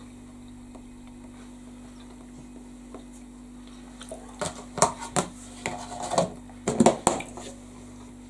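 A run of sharp clinks and knocks of crockery and cutlery, in several quick clusters starting about four seconds in, over a steady low hum.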